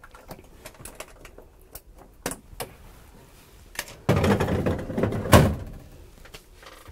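Plastic first aid kit's latches clicking shut, then the kit sliding onto the bus's overhead shelf about four seconds in, a second and a half of rumbling scrape that ends in a loud thunk.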